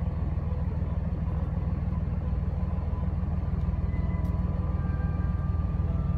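Steady low rumble of a vehicle's engine and tyres, heard from inside the cabin as it drives slowly.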